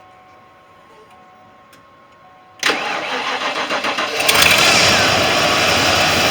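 1993 Ford Bronco engine being started for the first time after a fuel rail replacement: about two and a half seconds in the starter cranks it with a pulsing churn for about a second and a half, then the engine catches and keeps running steadily and louder.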